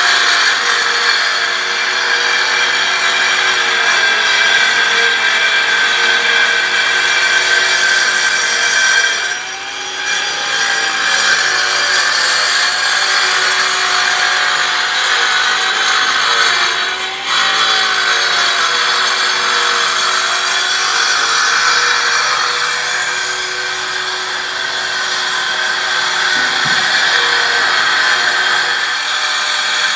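Perfect Trac joint-cleaning saw running its blade along a sawn joint in a concrete floor, cleaning out the joint: a steady, loud grinding whine whose pitch wavers slightly, dipping briefly twice.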